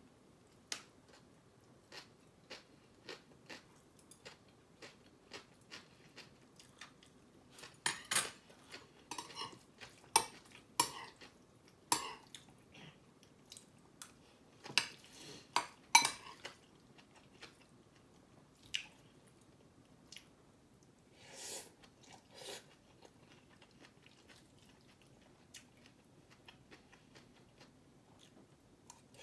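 Spoon or chopsticks clicking against a bowl and dish now and then while bibimbap is eaten, with chewing in between. The clicks come thickest about a third to halfway through.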